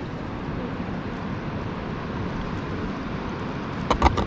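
Steady rush of running water heard from a kayak, with two or three quick knocks about four seconds in.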